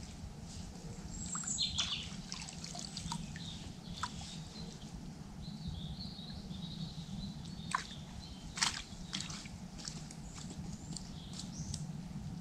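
Small splashes and drips of water as a perch is handled in a landing net in the river, with a couple of sharper splashes about two thirds of the way in. Birds chirp faintly over the steady rush of the river.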